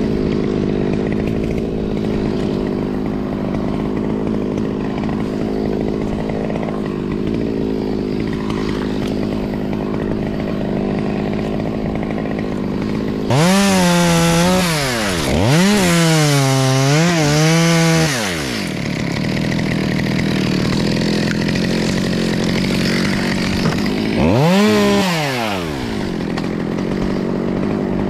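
Top-handle chainsaw revving and cutting: about halfway through it revs up and back down, then runs high for a few seconds with dips in pitch as it bites, and near the end it gives one more short rev. A steady machine hum runs underneath.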